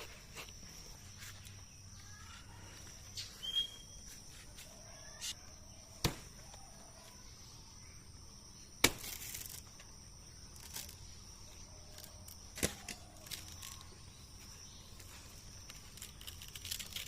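Blade chopping into a green banana tree's stem: a few sharp strikes spaced seconds apart, the loudest about nine seconds in and followed by about a second of rustling. Crickets or other insects keep up a steady high buzz underneath.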